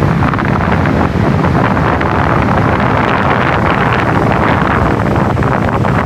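Strong typhoon wind buffeting the microphone over heavy surf breaking and washing up a beach, a loud, continuous rumble and hiss.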